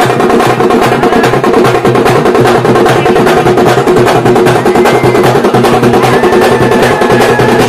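Dappu frame drums beaten with sticks in a fast, loud, unbroken rhythm.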